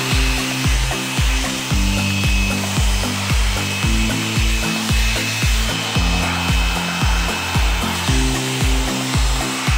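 Handheld electric air blower running steadily, a high motor whine over rushing air, blowing dust out of an opened projector. Background music with a steady beat runs underneath.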